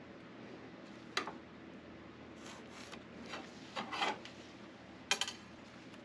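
Steel plate being handled by hand: a few short scraping strokes and sharp metallic clicks, with no grinder running.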